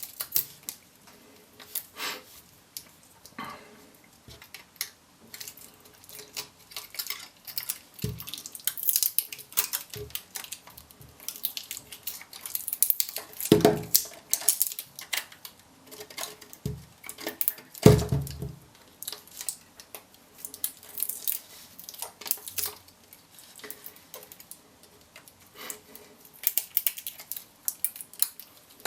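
Scattered metallic clicks, scrapes and clinks as leftover nickel connector strips are worked off Sanyo 18650 lithium-ion cells, with a couple of louder knocks about halfway through.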